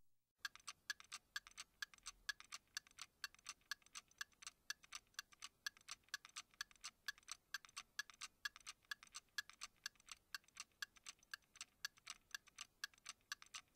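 Clock ticking: short, even ticks, about four or five a second, starting about half a second in.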